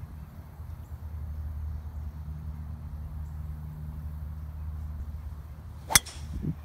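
Golf driver striking a teed ball: one sharp crack about six seconds in, the loudest sound, over a steady low rumble.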